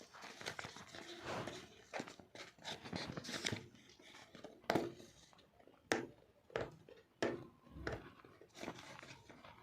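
Cardboard box and packaging of a pair of wireless earbuds being handled and opened: scattered sharp clicks and taps with short rustles in between.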